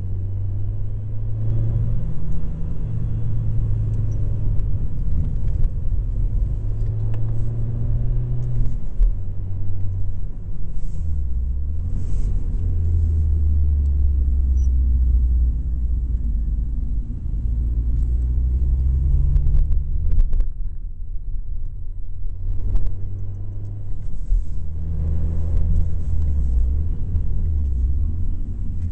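Rally car engine driven hard, its note climbing and dropping in steps through gear changes and lifts for bends, over heavy wind and road rumble on a bonnet-mounted camera. The engine eases off for a couple of seconds about two-thirds through before pulling again.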